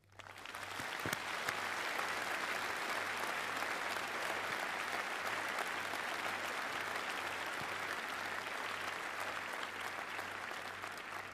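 Large audience applauding, swelling over the first second, holding steady, then thinning out near the end.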